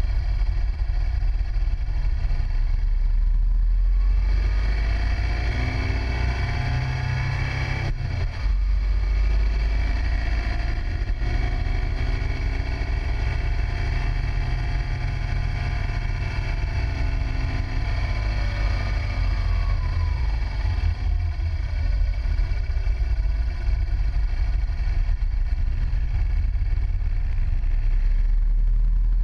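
Motorcycle engine heard from an onboard camera under a heavy low rumble, its pitch rising and falling as the rider accelerates and eases off through the bends, with a brief drop about eight seconds in.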